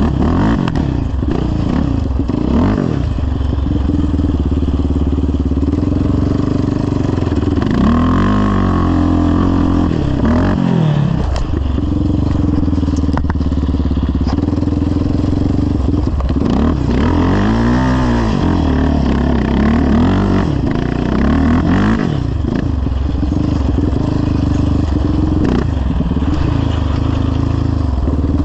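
Yamaha Raptor 700R ATV's single-cylinder four-stroke engine running through a full CT Racing exhaust while being ridden, the revs climbing and falling as the throttle is worked. There are two long swells of revving, about a third and two-thirds of the way through.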